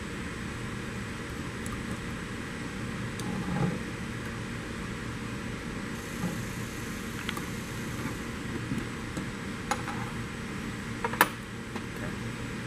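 Steady background hum of room ventilation, with a few light metallic clicks as a 10 mm wrench tightens the steel nuts on a wiper basket's top hub; the sharpest click comes near the end.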